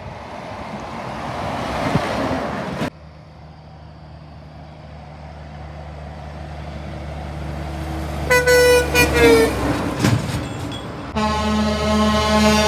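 Diesel dump trucks passing on a road, with engine drone and tyre noise. About eight seconds in, a truck's air horn gives a few short blasts. Near the end, a long loud air-horn blast sounds from an approaching truck.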